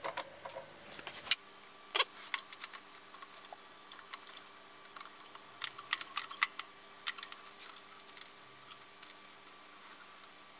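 Scattered clicks and light knocks of an 8mm film reel being handled, fitted onto the spool arm of a Bolex M8 projector, and its film threaded through the mechanism.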